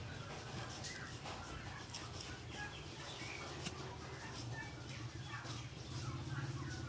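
Small birds chirping now and then over a steady low hum, with faint clicks and scrapes of a knife cutting hide from a cow's head.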